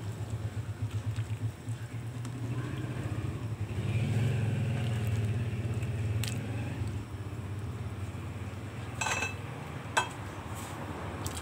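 A large pot of pancit molo soup boiling on the stove, a steady low rumble with a fast bubbling flutter. A ladle stirs through the soup about four seconds in, and near the end there are two sharp knocks of the ladle against the metal pot.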